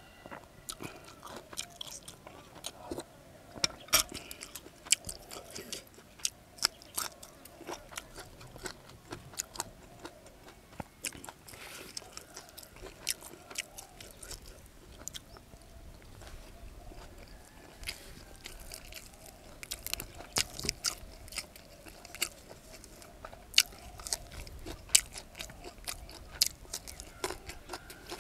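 A person eating, chewing and crunching food, with many short, sharp crunches at an irregular pace.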